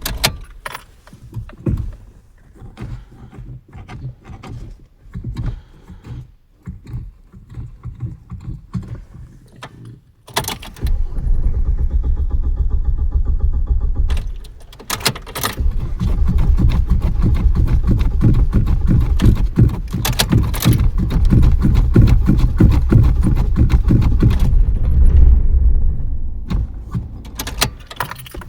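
A car's starter cranking the engine in long attempts without it catching: an even, rhythmic chugging, first for about three seconds, then after a short break for about ten seconds, fading away near the end. Before that, scattered short knocks and rattles.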